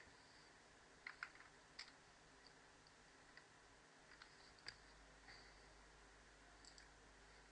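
Near silence with a few faint, scattered computer keyboard clicks over low room tone.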